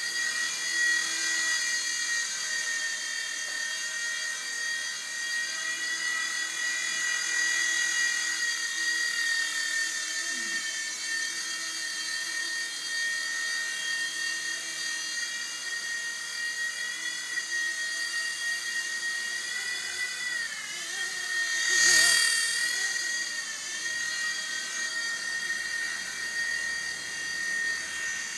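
Small 4-channel electric RC helicopter flying, its motor and rotor giving a steady high-pitched whine. About 20 seconds in the whine dips in pitch and recovers, and a second or so later there is a brief loud rushing noise before the steady whine goes on.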